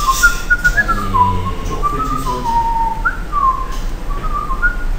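A person whistling a tune: a single clear line of short notes stepping and sliding up and down, with a quick upward slide about three seconds in.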